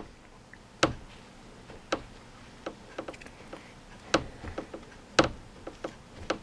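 Light, irregularly spaced clicks and taps, a dozen or more, as a fingertip presses a folded tissue over a water-slide decal on a plastic motorcycle fairing panel. The louder clicks come about a second in and about five seconds in.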